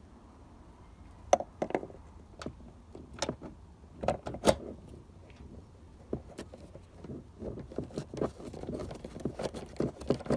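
Hand tools clinking and knocking on metal while the fixing bolt of a car's front wing (fender) is fitted. A handful of separate sharp clinks come in the first half, then a run of quicker small clicks and rattles near the end.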